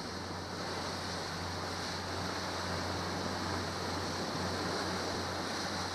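Motorboat under way at steady speed: the engine's constant low drone under the rush of water along the hull, with wind buffeting the microphone.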